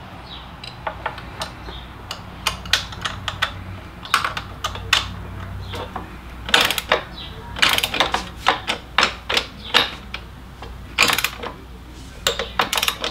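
Socket-wrench ratchet clicking in short, irregular runs as a nut is run down and tightened on a motorcycle's front engine-mount bolt, with a 12 mm socket on the torque wrench.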